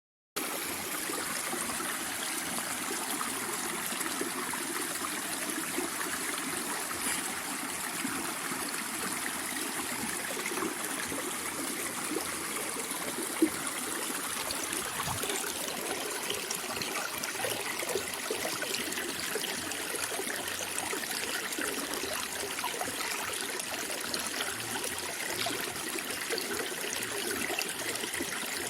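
Water flowing and trickling steadily, like a small stream running over stones, with one brief louder tick about halfway through.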